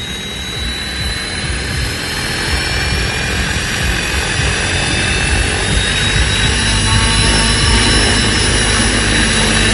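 Simulated turbine start-up sound from the sound module of a 12S electric Vario Lama scale RC helicopter on T-Rex 700 mechanics, a whine rising slowly in pitch as the main rotor spools up.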